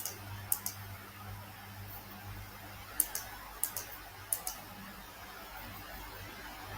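Computer mouse clicking: a handful of short sharp clicks, some in quick pairs, over a faint steady low hum.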